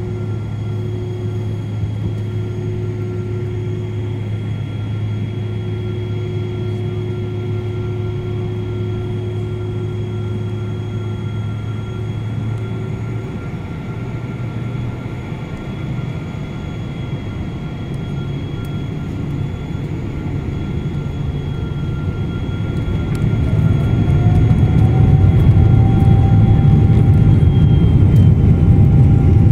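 Boeing 777-200 jet engines heard inside the passenger cabin: a steady low hum with a few steady whining tones at low thrust. About 23 seconds in, the engines spool up and the noise grows louder, with a whine rising in pitch, as takeoff thrust is set.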